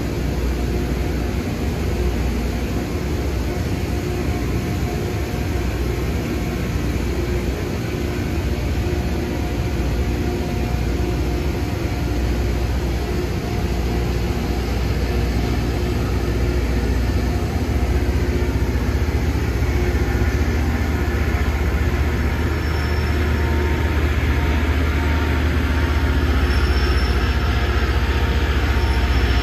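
Loram rail grinding train running on the track: a steady heavy rumble with a broad hiss above it, growing louder over the last ten seconds or so as it comes closer.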